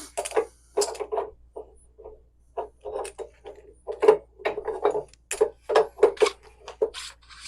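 Irregular clicks and knocks of tools and fittings being handled while a new pressure relief valve is threaded into a water heater. The knocks come two or three a second, with the densest run in the second half.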